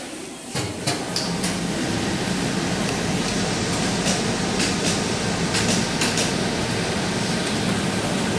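Steady mechanical din of garment-factory machinery, starting suddenly about half a second in, with a low hum and scattered light clicks.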